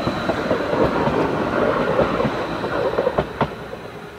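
Red low-floor tram passing close by, a steady rumble of wheels on rail with a few sharp clacks about three seconds in. The sound fades as it moves away near the end.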